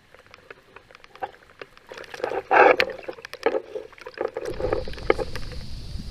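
Kayak paddle dipping and splashing in the river water, with drips and small knocks, the loudest splash about two and a half seconds in. Wind on the microphone comes in over the last second and a half.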